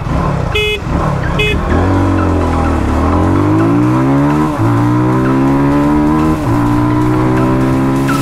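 Two short motorcycle horn beeps, then motorcycle engines pulling away and accelerating, their pitch climbing with two sharp drops at upshifts.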